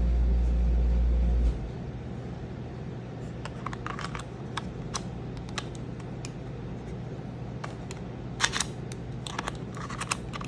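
Small plastic clicks and taps of a handheld walkie-talkie and its parts being handled, scattered and in short clusters, with the loudest just past the middle. A loud low hum cuts off suddenly about a second and a half in.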